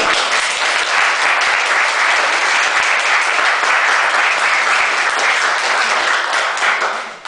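Small group of guests applauding: dense, steady clapping that dies away near the end.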